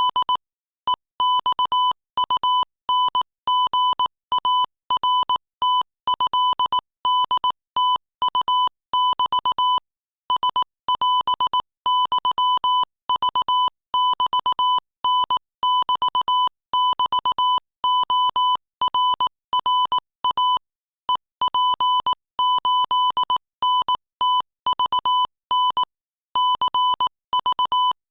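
Morse code sent at 22 words per minute: a single steady beep tone keyed on and off in fast dots and dashes, with short breaks between words.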